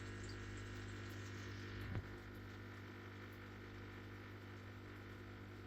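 Faint steady low electrical-sounding hum, with one soft knock about two seconds in.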